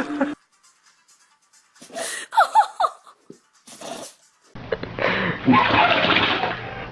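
A dog sneezing: a sharp burst about two and a half seconds in, mixed with a short rising-and-falling whine, and another sneeze near four seconds. Music cuts off just at the start, and from about four and a half seconds a noisier stretch with voices follows.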